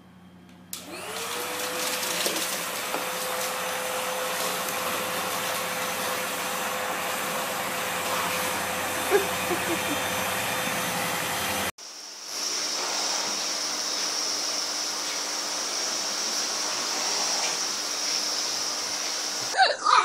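A vacuum cleaner switches on about a second in, its motor spinning up with a rising tone and then running steadily. Just before halfway the sound cuts to a different vacuum cleaner running with a steady high whine. A few sharp, loud sounds break in right at the end.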